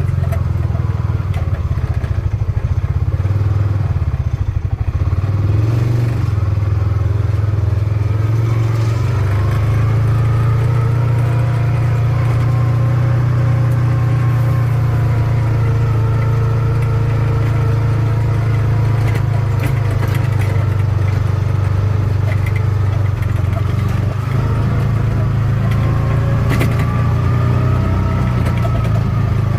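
Farm buggy's engine running steadily while driving, with a whine that slowly rises and falls in pitch.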